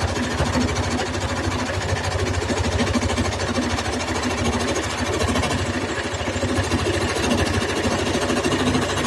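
Electric jigsaw cutting through wood, running steadily with a fast, even rattle from the blade's up-and-down strokes.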